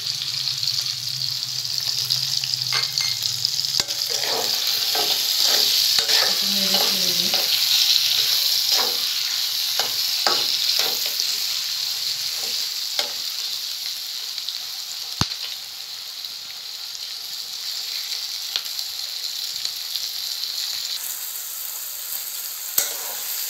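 Sliced onions and garlic cloves sizzling in hot oil in a metal karahi, being fried soft before the spices go in. A metal spatula scrapes and stirs them through roughly the first half, and there is one sharp click about fifteen seconds in.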